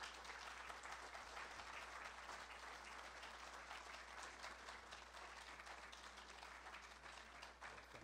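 An audience applauding steadily, heard faintly, with a low steady hum underneath.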